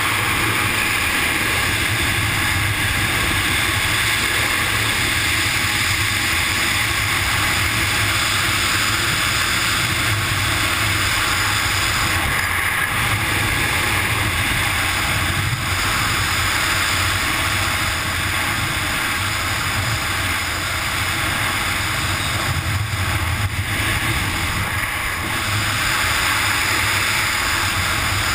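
Steady, loud rush of freefall airflow over the flying camera's microphone during a wingsuit flight: continuous wind noise with a deep rumble underneath.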